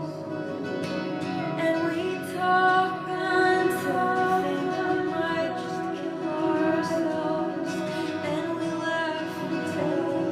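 A woman singing a slow song over instrumental accompaniment, with long echoing reverberation like sound filling an empty arena.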